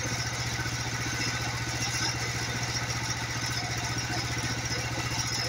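Portable sawmill's engine idling steadily.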